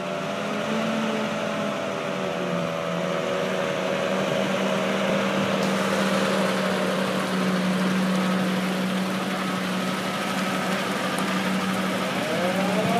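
1951 Ford Big Job fire truck's V8 engine running steadily. About a second before the end, the truck's original siren starts to wind up in a rising wail.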